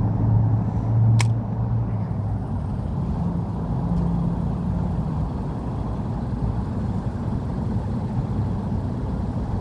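Road traffic: passing cars give a steady low rumble with an engine hum that swells in the first two seconds and again a few seconds later. A single sharp click about a second in.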